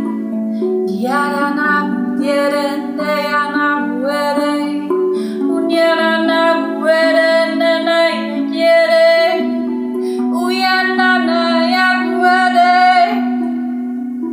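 A woman's voice sings long wordless phrases that slide in pitch, over the sustained ringing notes of a Rav Vast steel tongue drum tuned to B Kurd.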